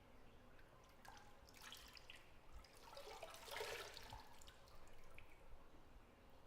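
Faint bathwater sounds: a few drips and light splashing in a bathtub, loudest about three and a half seconds in, over quiet bathroom room tone.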